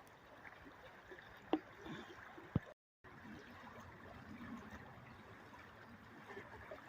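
Faint, steady rush of shallow river water flowing over the riverbed, with two small clicks in the first half and a brief cut to silence just before the middle.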